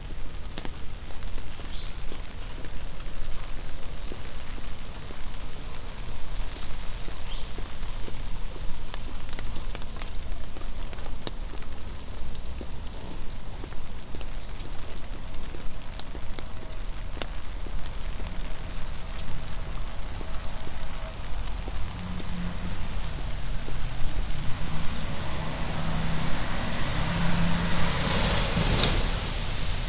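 Steady rain on wet city pavement, with many small drop ticks over a low rumble. Near the end a car passes on the wet street, its tyre hiss building to a peak and falling away.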